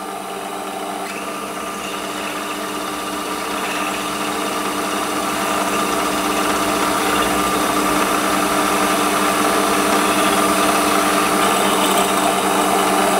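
Warco WM 180 bench lathe running with a 6.35 mm twist drill in the chuck, drilling a pilot hole into an aluminium block. It makes a steady mechanical whine with cutting noise, which grows louder over the first several seconds and then holds steady.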